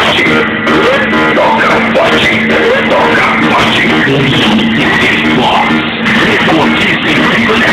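Loud rock music with guitar and drums, played over a car sound system.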